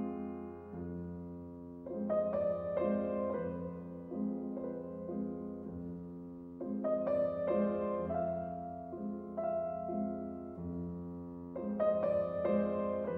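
Background piano music: slow, gentle phrases of struck notes and chords that fade away, a new phrase beginning about every five seconds.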